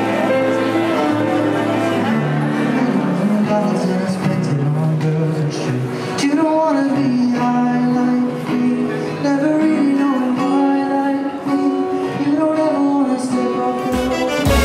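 Background music: a slow song with singing over plucked guitar. A different, brighter piece cuts in near the end.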